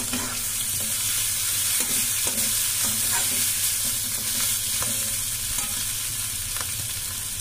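Crushed boiled potatoes sizzling in hot oil in a metal kadhai while a spatula stirs them, with a few short scrapes and knocks of the spatula against the pan.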